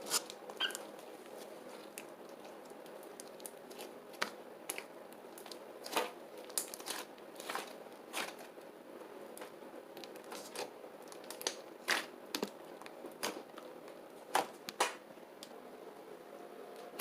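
Clay slime made with Model Magic clay being squeezed and stretched by hand for ASMR, giving irregular sharp crackles and pops over a faint steady hum.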